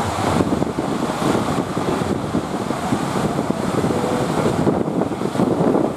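Wind buffeting the microphone over the rush of surf.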